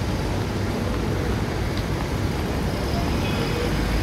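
Steady low rumble of city road traffic, continuous and even.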